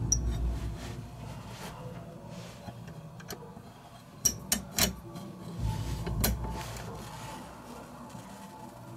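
Small metal parts of a motorcycle top case latch being handled and fitted by hand: three sharp clicks about four to five seconds in and another about six seconds in, with dull bumps of handling around them.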